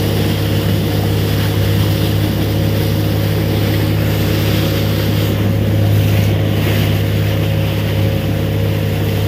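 Motorboat engine running steadily under way: a low, even drone with the rush of water and wind over it.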